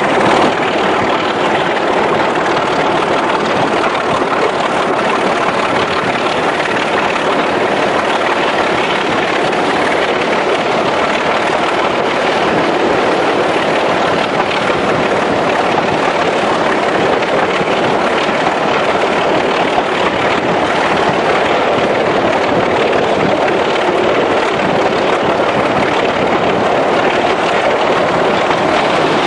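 Class 25 diesel locomotive's Sulzer six-cylinder engine working under power at speed, heard from the cab window with wind rushing past the microphone: a loud, steady noise.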